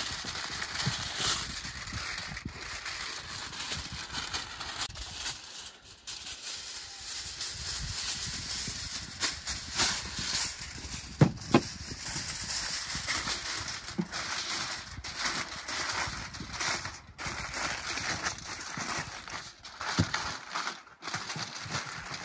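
Aluminium foil crinkling and rustling as it is wrapped in several layers around a whole chicken, with many small crackles and taps.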